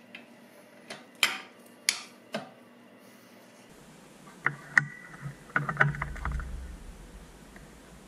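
A few sharp clicks from a socket ratchet on the motorcycle's bolts, then a cluster of metal clinks and knocks from tools and parts being handled, over a low rumble.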